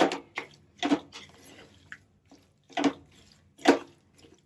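A spatula stirring and scraping a wet ginger-and-jaggery paste in a kadhai: a series of separate squelching strokes with pauses between them, the loudest two near the end.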